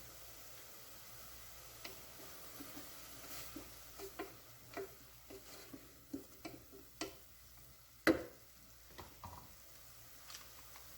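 A spoon stirring in a frying pan, tapping and scraping against the pan at irregular moments, with one louder knock about eight seconds in, over a faint sizzle of tomato puree frying with onions in oil.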